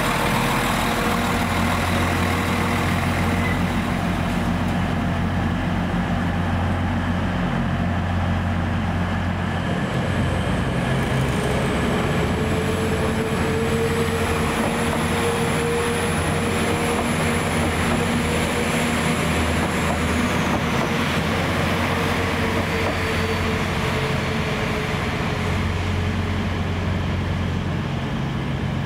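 Diesel multiple units running at a station: a steady low engine drone throughout. From about ten seconds in, a Northern class 195 diesel unit moving along the line adds a rising whine and a mid-pitched tone, which fade out around twenty seconds.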